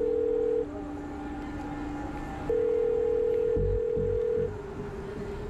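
Telephone ringback tone of a call going through: a steady beep about two seconds long that stops, then sounds again about two seconds later, over a low background drone.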